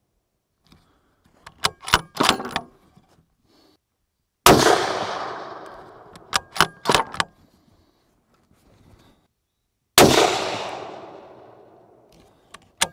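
Two shots from a Tikka T3x Tac A1 bolt-action rifle in 6.5 Creedmoor, about five and a half seconds apart, each followed by a long echo that fades over a couple of seconds. Quick sharp metallic clicks of the bolt being worked come before the first shot and again between the two.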